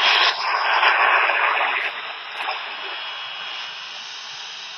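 Shortwave static and hiss from a County Comm GP-5DSP portable radio on its whip antenna, tuned to WBCQ on 7490 kHz. The station is very weak, buried in interference from a nearby computer. The noise is loudest for the first two seconds, then eases a little as the radio is turned to null the interference.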